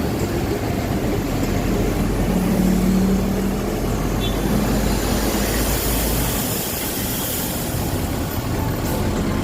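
Street traffic: a large vehicle's engine running with steady road noise, and a rushing hiss that swells and fades about two-thirds of the way through as a vehicle passes.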